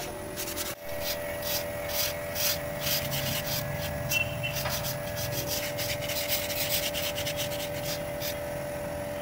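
Rhythmic scratchy rubbing strokes, about two a second, worked by hand along the rusty steel frame of a tractor cultivator, over a steady hum.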